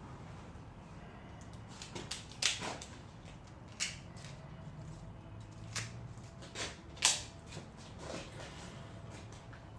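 Irregular sharp knocks and clicks, about eight in all and spread unevenly, the loudest about seven seconds in, over a low steady hum.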